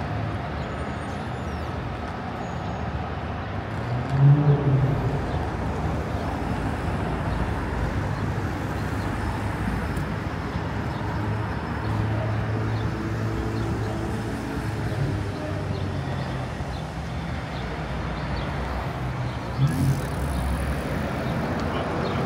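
New York City street ambience: steady traffic rumble from passing cars, with passersby talking in the background. Two brief louder sounds stand out, about four seconds in and near the end.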